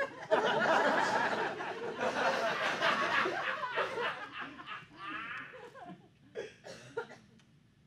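Audience laughing, loudest in the first few seconds and dying away after about four or five seconds, then a few scattered single laughs.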